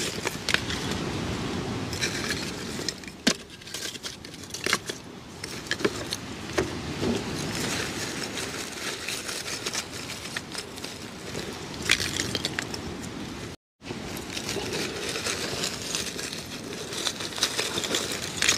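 Lumps of charcoal clinking and clattering as they are lifted out of a bag and dropped onto a pile, with a plastic bag rustling and crinkling. The sound cuts out for a moment about two-thirds of the way through.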